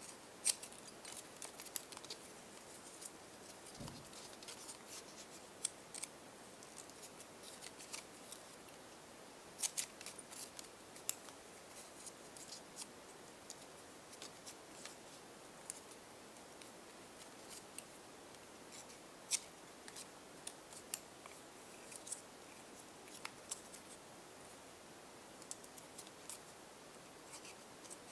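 Small scissors snipping folded strips of paper into small pieces: faint, crisp snips that come irregularly, sometimes several in quick succession.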